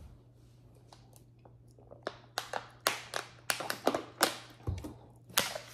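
An irregular run of about a dozen sharp clicks and taps of small hard objects being handled, starting about two seconds in, over a faint low hum.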